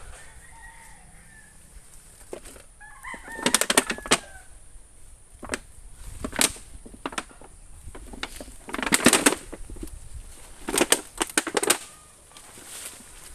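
A rooster crowing in the first few seconds, with a series of sharp knocks and rustles in between, the loudest about nine seconds in.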